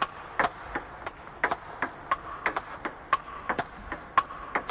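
Table tennis rally: a celluloid ball hit back and forth by rubber paddles and bouncing on the table, a quick series of sharp clicks about two to three a second, some with a short ping.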